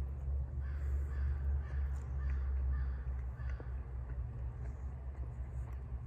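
Crows cawing a few times over a steady low rumble.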